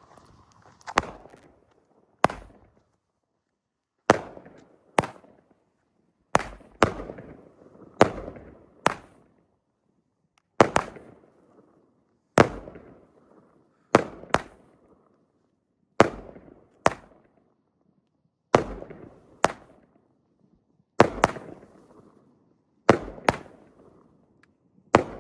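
A 16-shot consumer firework cake firing shot after shot: sharp bangs, mostly in close pairs, each with a short fading tail, coming about every two seconds.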